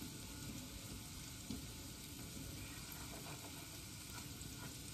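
Wooden spoon stirring thick creamed corn in a cast-iron skillet over a faint steady sizzle of food cooking in the pans, with a small knock of the spoon about a second and a half in.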